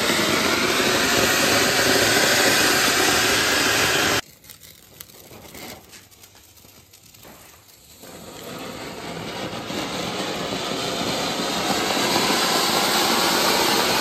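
Ground fountain fireworks (anar) spraying sparks with a loud, steady rushing hiss. It cuts off abruptly about four seconds in, leaving a quiet stretch with a few faint crackles. Then a newly lit fountain's hiss swells gradually until it is loud again near the end.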